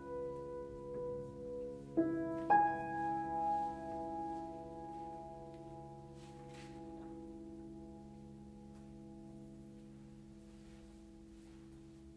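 Grand piano: a chord rings in from just before the start, then two more chords are struck about two seconds in, half a second apart. All are left to ring, wavering at first, then slowly dying away.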